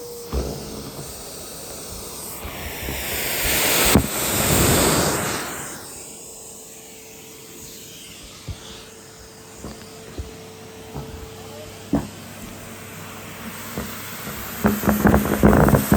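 Henry cylinder vacuum cleaner running with a steady hum and a whine, its suction hiss swelling and falling away a few seconds in. A few sharp knocks, and a quick run of clattering knocks near the end.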